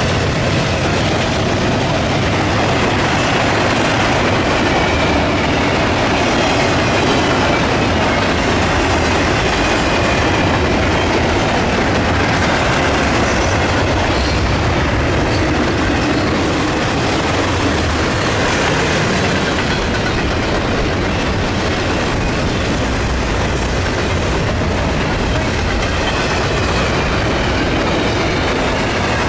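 A train's cars rolling past close by: a steady, loud clatter and rumble of steel wheels on the rails, with some wheel squeal.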